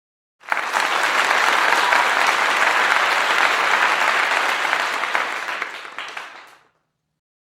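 Crowd applauding: many hands clapping at once, starting suddenly about half a second in, holding steady, then fading out and stopping about a second before the end.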